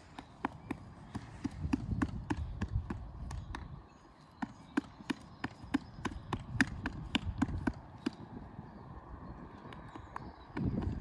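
Horse tack tapping and clinking as the saddle is handled on a young horse's back: many quick, irregular clicks, about two to three a second.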